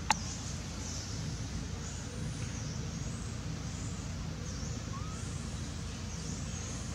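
Steady low outdoor rumble with faint, high chirps scattered through it, and one sharp click just after the start.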